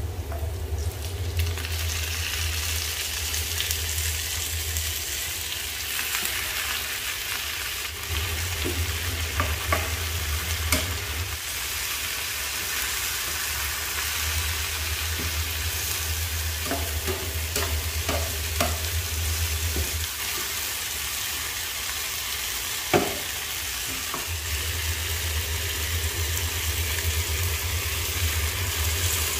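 Water spinach sizzling as it is stir-fried in a hot pan, with a metal spatula clicking against the pan now and then. A low hum comes and goes underneath.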